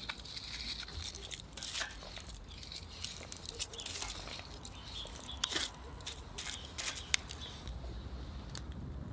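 Wood embers of a campfire crackling, with irregular sharp pops and ticks. Near the end the crackling thins out to a quieter low background.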